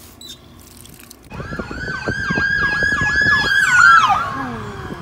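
Emergency vehicle sirens, a steady wail crossed by rapid yelping sweeps. They start about a second in, grow loud, and near the end the tone slides down in pitch and fades.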